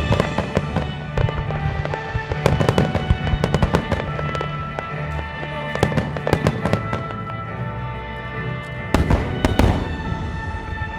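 Fireworks: a wide starmine of aerial shells bursting in rapid volleys over music, with thick clusters of bangs about two seconds in and again near the end.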